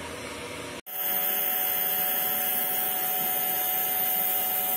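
A steady electric buzz of a small motor with an unchanging pitch, starting after a short cut about a second in: a compressor nebulizer running for an inhalation.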